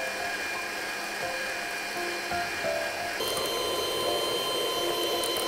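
Small kitchen motors whining steadily: a Panasonic countertop blender blending the yacon drink and a hand-held electric mixer whipping cream. About three seconds in the whine shifts to a stronger, higher, noisier tone.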